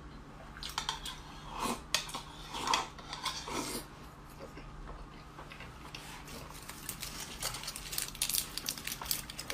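Chopsticks clicking and scraping against a ceramic bowl and plate, with quick runs of light clicks in the second half, alongside close wet chewing and mouth sounds while eating fatty braised pork.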